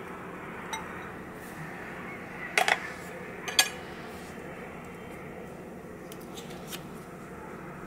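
A spoon and a small glass bowl clinking: two short clusters of sharp clinks about a second apart near the middle, with a few faint ticks later, over a steady low hum.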